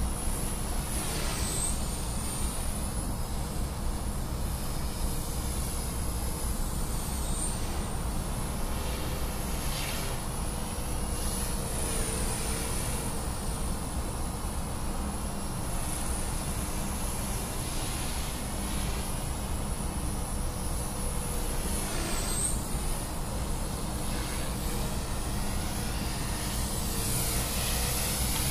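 Novus 125 CP electric RC helicopter with a brushless motor whining high overhead, the pitch dipping briefly a few times as it manoeuvres. A steady low rumble sits underneath.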